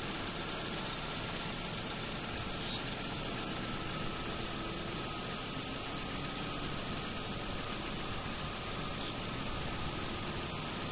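Steady wind and the low rumble of an idling vehicle, with a faint steady high whine.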